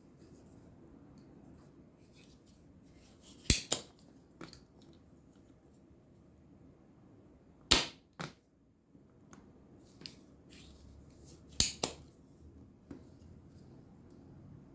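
Sharp clicks and taps of small hand tools being handled on a workbench while working on a circuit board. The three loudest come as a quick double, a single and another quick double, with fainter ticks between them, over a faint steady hum.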